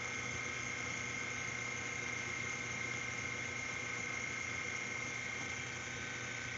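A steady hum and hiss with a thin, high, unchanging whine.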